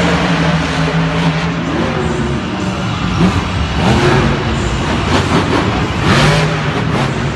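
Monster truck engine revving hard over and over, its pitch rising and falling as the truck drives and jumps over the dirt course.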